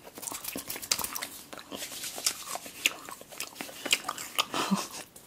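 Candy being bitten and chewed close to the microphone: many short, crisp mouth clicks and crunches.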